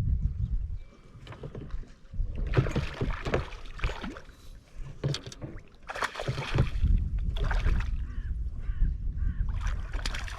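Water splashing as a hooked rainbow trout thrashes at the surface beside the boat, in two main bursts about two and a half and six seconds in, over a steady low rumble.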